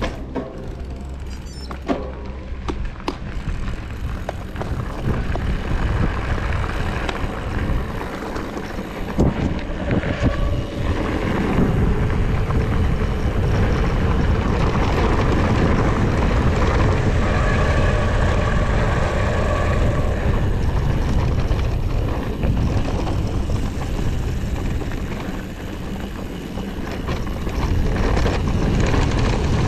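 Wind rumbling on the bike-mounted camera and tyres rolling over gravel as an electric mountain bike rides down a mountain track, with a few knocks from the bike in the first seconds. The rumble grows louder about twelve seconds in as the bike picks up speed downhill.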